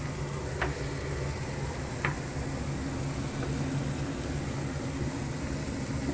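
Steady hum and hiss in the kitchen while long beans and onion cook in a nonstick frying pan on a gas stove, with two short ticks about half a second and two seconds in.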